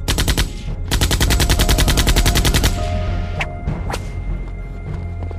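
Machine-gun fire in rapid bursts of about ten shots a second: a short burst, a brief pause, then a longer burst, followed by two single shots a little over half a second apart.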